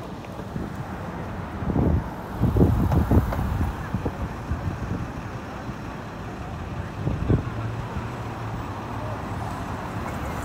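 Traffic on a busy city street: cars and trucks passing, with a louder low rumble about two to four seconds in and another just after seven seconds.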